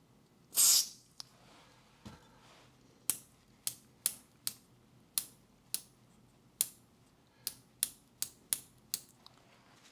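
A short spray hiss of contact cleaner into the volume control of a 1962 NEC NT-625 transistor radio. Then about a dozen sharp clicks, roughly two a second, as the control wheel is worked back and forth to clean it.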